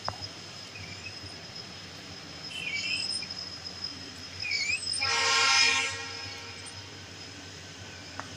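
Indian Railways passenger coaches rolling steadily past on the track, with a train horn sounding once for about a second a little past the middle. Two short high chirping glides come just before the horn.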